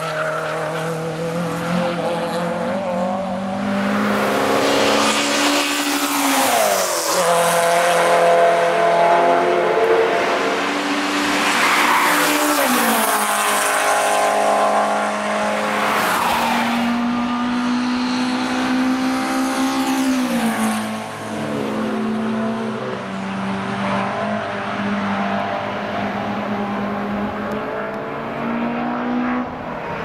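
Race-prepared VW Golf Mk1 engine revving hard through corners, its note climbing and then falling away about four times as the car passes, with tyres squealing in places.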